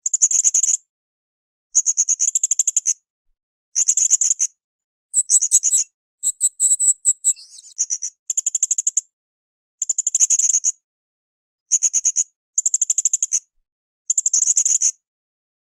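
Blue-crowned hanging parrot (srindit) calling in a string of high, rapid trilled bursts, each about a second long or less, with short pauses between them. Near the middle the pattern breaks into a busier run of higher chirps and a short gliding note.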